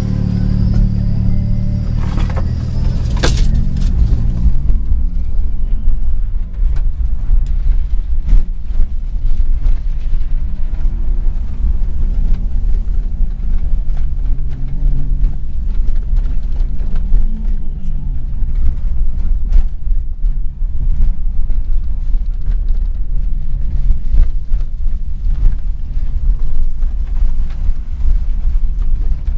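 Car driving on a rough dirt road, heard from within the car: a heavy, steady rumble from tyres and suspension, with the engine note rising and falling as the throttle changes. A few sharp knocks sound over it, the loudest about three seconds in.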